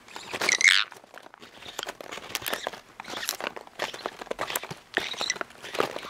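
Sun conure rummaging in a paper popcorn bag: steady crinkling of the bag and crunching of popped popcorn. A brief high, wavering call from the conure about half a second in is the loudest sound, with another short one near the end.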